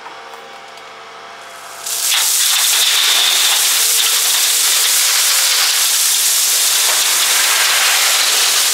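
A Volvo wheel loader's engine is running. About two seconds in, a bucketful of 3/4-inch river rock starts pouring into a steel dump trailer, a loud steady rush of tumbling stones that goes on to the end.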